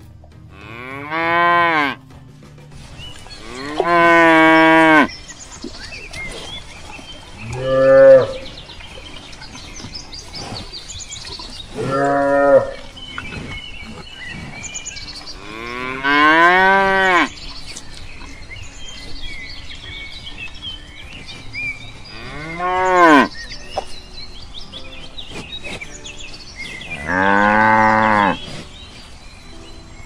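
Cattle mooing: seven calls a few seconds apart, each rising and then falling in pitch. Some are long and drawn out, others short.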